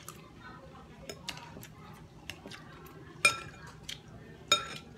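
Metal spoon and fork clinking against a glass bowl and a plate while eating: a few light taps, then two loud ringing clinks in the second half.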